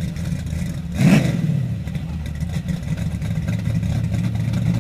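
Drag-racing station wagon's engine running steadily in a low drone at the starting line, with a short louder rev about a second in.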